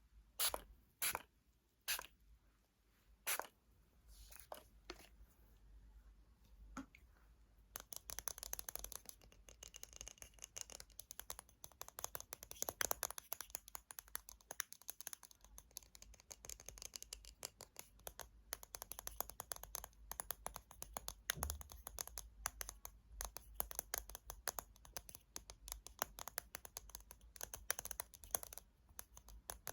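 Fingernails tapping and scratching on small hard objects. A few separate taps come in the first few seconds, then from about eight seconds in, a fast, continuous run of light taps and scratching.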